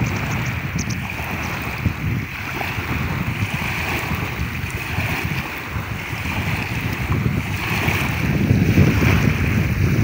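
Small wind-driven waves lapping and splashing against a pebble lakeshore, with wind buffeting the microphone as a low rumble. The sound swells a little near the end.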